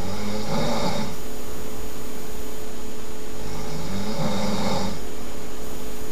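A sleeping person snoring: two snores about four seconds apart, each lasting a little over a second, over a steady background hum.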